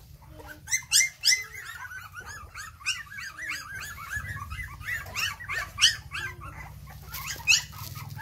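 Puppies yipping and whining in a fast, near-continuous run of short high-pitched cries, with a few sharper yelps standing out.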